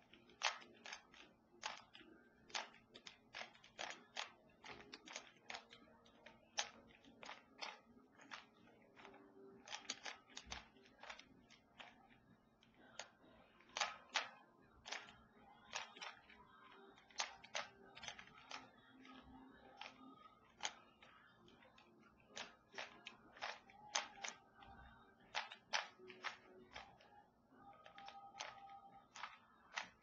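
Plastic 3x3 Rubik's cube being turned quickly by hand: its layers click and clack as they are twisted, several turns a second in irregular runs with brief pauses.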